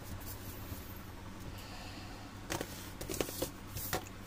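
Handling of a plastic motor-oil bottle and a plastic telescopic funnel: a light rustle, then a few sharp plastic clicks and knocks from about two and a half seconds in to near the end, over a steady low hum.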